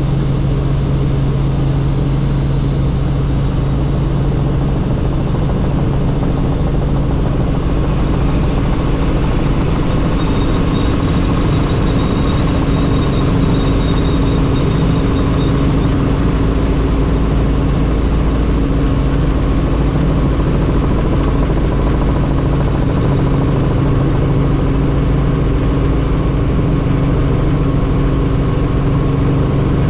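Helicopter in flight: a loud, steady drone of engine and rotor with a constant low hum, and a faint high whine for a few seconds in the middle.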